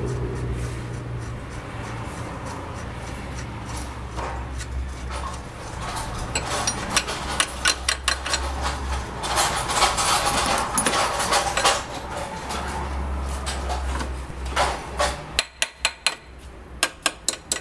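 Metal hand tools clinking and knocking against exhaust hardware as a wrench works on the catalytic converter's fasteners, with a run of sharp clicks near the end. A low steady rumble underlies the first few seconds.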